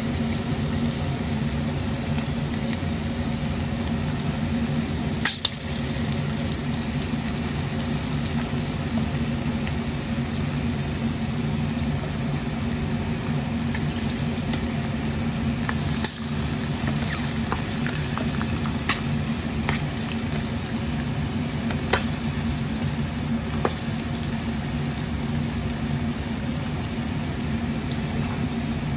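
Battered prawns deep-frying in hot oil: a steady bubbling sizzle with a handful of sharp pops, over a steady low hum.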